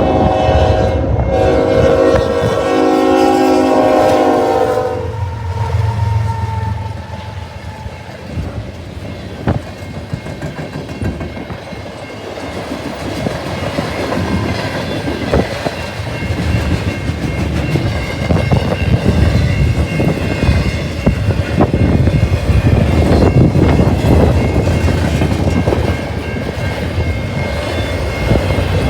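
CN freight locomotive's air horn sounding a short blast, then a long one of about four seconds, followed by the freight train rolling past with a steady rumble of wheels on the rails.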